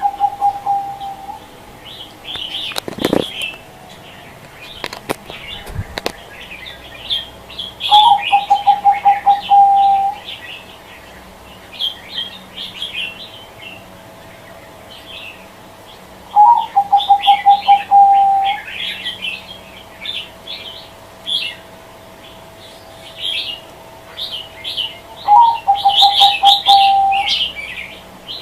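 Zebra dove (perkutut) cooing: a short rising note followed by a fast string of coos lasting about two seconds, repeated roughly every eight to nine seconds. Small birds chirp throughout, and a few sharp knocks sound in the first six seconds.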